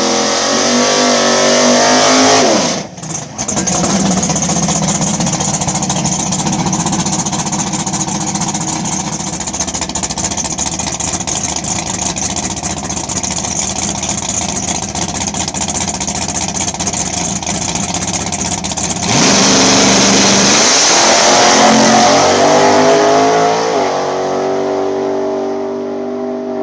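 Turbocharged drag-racing pickup's engine revving, then running roughly and loudly at the line. About 19 seconds in it launches at full throttle, pitch climbing and dropping back at two gear changes, then fading as the truck runs away down the track.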